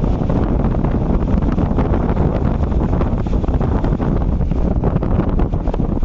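Wind buffeting the microphone: a loud, steady rumbling noise that flickers in level.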